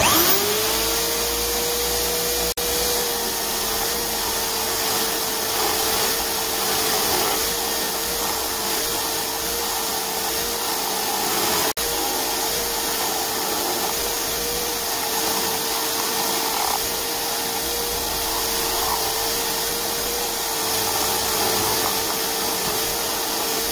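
Electric drill motor powering a homemade wood lathe: it spins up at the start, then runs with a steady whine and fan rush while a chisel ground from a drill bit cuts into the spinning softwood. The sound cuts out briefly twice.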